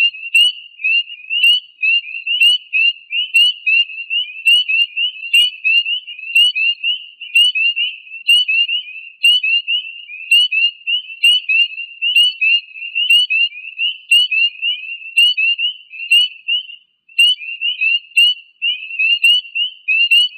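Chorus of spring peepers, the males' mating calls: many short, high, rising peeps overlapping several times a second, with a brief break about 17 seconds in.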